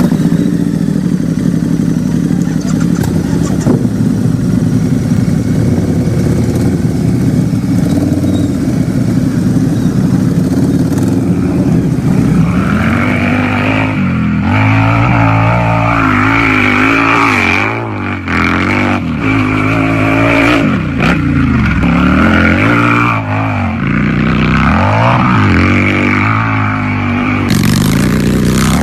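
Harley-Davidson motorcycle's V-twin engine running at a steady idle, then revved again and again from about twelve seconds in, the pitch rising and falling with each blip of the throttle.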